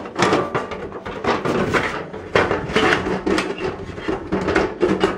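Metal top cover of a Nicolet Accura 100 oscilloscope case being lifted off its chassis, scraping and clattering with a string of irregular knocks as it comes free.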